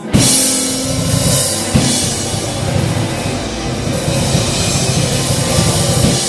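Live blues band playing loudly, the drum kit with cymbals washing over the rest of the band; a big full-band hit lands right at the start, with another drum hit a couple of seconds in.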